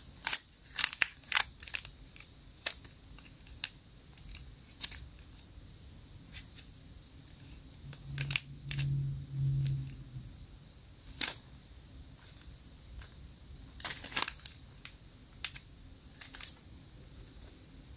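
Thin plastic packaging crinkling and crackling in sharp, irregular bits as a squishy toy is handled and pulled out of its bag. A short low hum comes around the middle.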